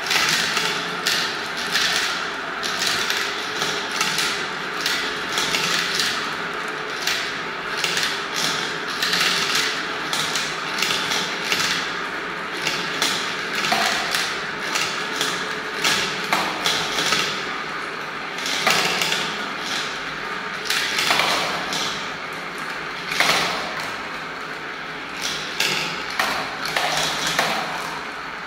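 Many small colourful balls rolling and swirling around the translucent plastic funnel bowls of a marble run and dropping through the centre holes into its tubes. The result is a continuous rolling rattle, dense with small clicks.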